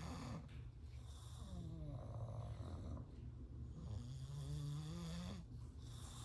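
English bulldogs snoring in their sleep: a steady low rasp, with two long pitched snores that slide in pitch, one about a second and a half in and one about four seconds in.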